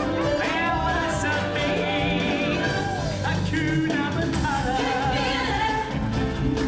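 Music with a singer: a vocal line with vibrato over instrumental backing.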